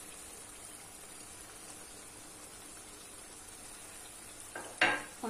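Minced-meat and onion filling frying in a stainless steel pan on a lit gas burner: a faint steady sizzle, with one sharp clack a little before the end.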